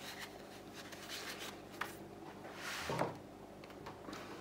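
Faint handling and rustling noises over a low room hum, with one brief soft breathy hiss about three seconds in.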